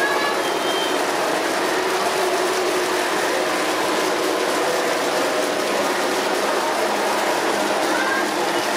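Model diesel train rolling along its track with a string of boxcars, under a steady hubbub of background chatter.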